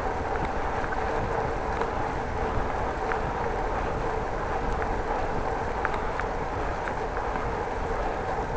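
Steady rolling noise of a bicycle riding along a concrete cycle path: a continuous hum and rush with a few faint ticks.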